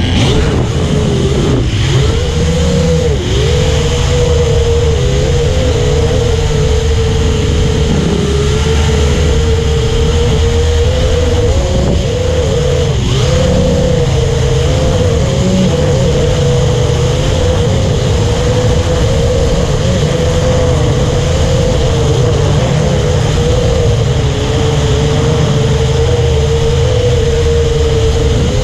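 Promark P70 VR quadcopter drone in flight, its motors and propellers making a steady whine that wavers up and down in pitch as the throttle changes, over a steady low rumble.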